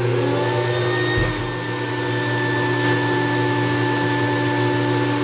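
Vacuum cleaner with a long extension tube running steadily while sucking water out of a boat's bilge. Its motor is still spinning up at the start, rising in pitch for about half a second before it settles.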